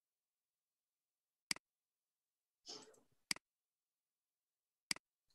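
Three sharp computer mouse clicks, each a quick press-and-release, about a second and a half apart, with a brief rustle just before the second.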